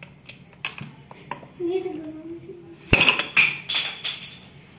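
A metal screwdriver prying and knocking pieces of shell off a coconut, with shell fragments clattering on a marble counter: a run of sharp clicks and knocks, the loudest about three seconds in.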